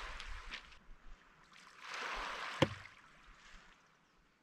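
Faint water sloshing in two swells of about a second each, with one sharp knock about two and a half seconds in.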